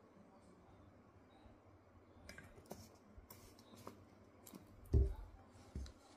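Light clicks and ticks of a plastic syrup bottle being handled. About five seconds in comes a dull thump as it is set down on the table, then a smaller knock.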